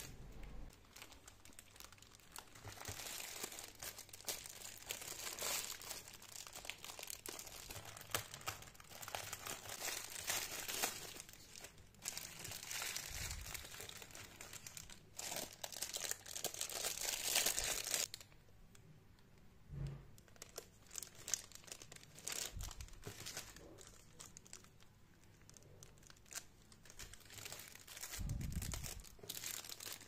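Clear plastic packaging crinkling and rustling as it is handled, with many small crackles. It is busiest for the first eighteen seconds or so, then quieter.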